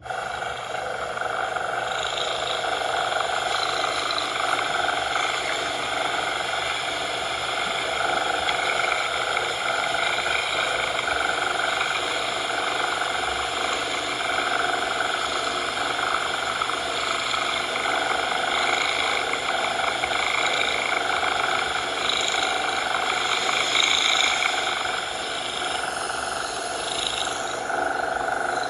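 Steady coloured noise: a continuous, even hiss spread across the range, with a faint low rumble beneath.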